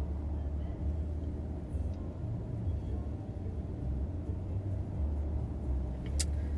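Low, uneven rumble inside a vehicle cabin, with a few light clicks near the end.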